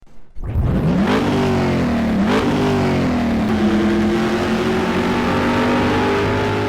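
VW Golf VII R's turbocharged 2.0-litre four-cylinder accelerating hard from a launch, its note climbing quickly. Two fast DSG upshifts about one and two seconds in, each with a sharp crack, then it pulls steadily with a slowly rising note.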